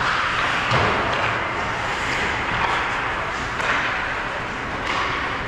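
Ice hockey play in an indoor rink: a steady scraping hiss of skates on the ice, broken by a few sharp clacks of sticks, puck or boards.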